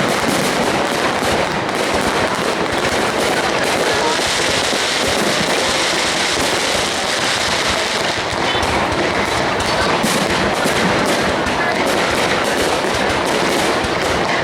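High-altitude aerial fireworks bursting overhead: a dense, continuous run of crackles and bangs, over a crowd's voices.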